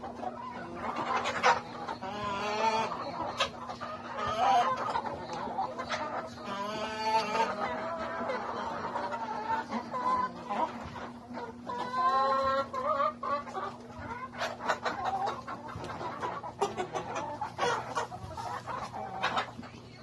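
A crowded flock of laying hens (Rhode Island Reds, Black Australorps, barred Plymouth Rocks) clucking and calling over one another, with a faint steady hum underneath.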